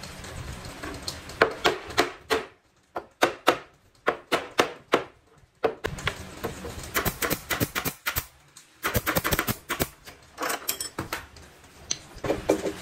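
Irregular runs of sharp knocks and clicks from carpentry work on wood, some single and some in quick clusters, with a couple of short pauses.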